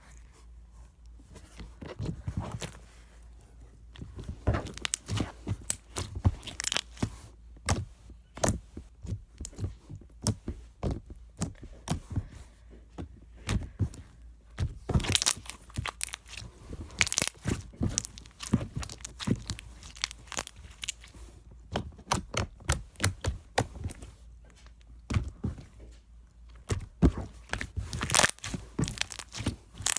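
Clear slime with little rhinestones mixed in, played with by hand, giving irregular sharp pops, clicks and crackles.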